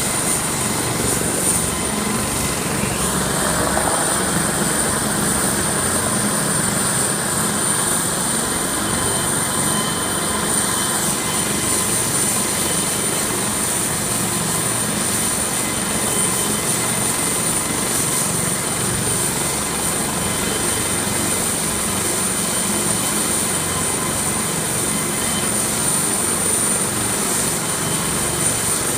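AS365 Dauphin twin-turbine helicopter running at take-off power: a steady, loud rotor and turbine noise with a constant high whine.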